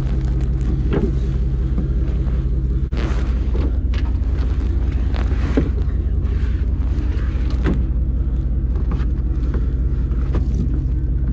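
An engine idling steadily, with scattered knocks, clicks and rattles of a ratchet strap being handled in a plastic-lined truck bed.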